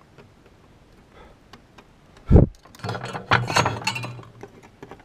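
A single knock on the bench a little over two seconds in, followed by about a second and a half of light clinks and rattles as the soldering tools are put down and the protoboard is picked up and handled.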